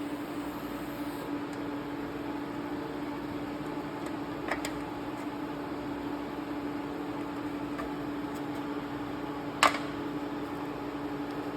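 Steady machine hum with one held low tone, broken by two short sharp clicks, one near the middle and a louder one about two-thirds of the way through.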